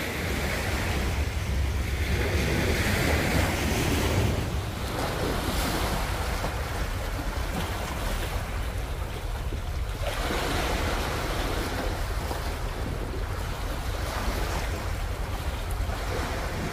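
Small sea waves washing onto the shore, the wash swelling and easing every few seconds, with wind rumbling on the microphone.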